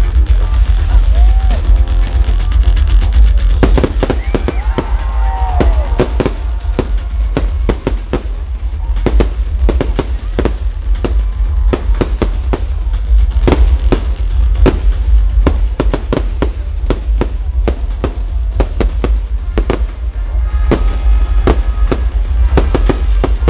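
Fireworks display firing a rapid, continuous barrage of bangs and crackles as aerial shells burst and spark fountains spray, over loud music. The bangs thicken about three and a half seconds in and keep coming several a second from then on.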